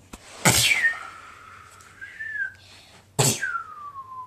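Mouth-made sound effects: two sudden hissing blasts, each trailing off into a whistled tone that falls in pitch, the second sliding down slowly for over a second.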